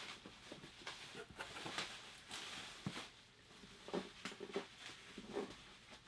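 Packing material and cardboard rustling and crinkling in irregular bursts as a well-packed mystery box is unwrapped by hand.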